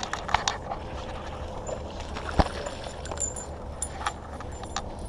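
Scattered clicks and knocks, the sharpest about halfway through, with light metallic clinks in the second half, over a steady low rumble.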